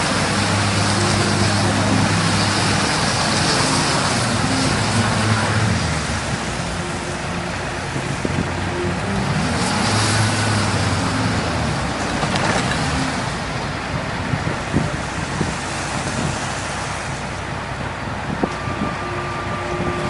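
Engine of a box truck stuck in a snowbank, running with its speed rising and falling, over steady city traffic noise.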